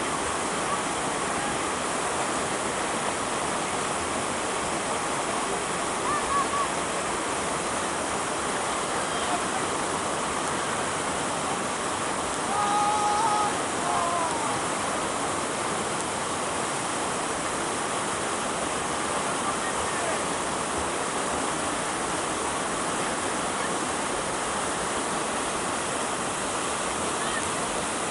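Steady rushing of flowing water, even and unbroken. A few faint, short whistle-like tones come about halfway through.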